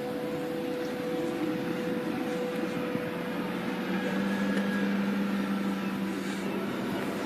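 Bulldozer blade scraping the ground, giving a steady mechanical hum with long, drawn-out eerie tones: a higher one fades out in the first few seconds, and a lower one comes in about halfway and holds nearly to the end.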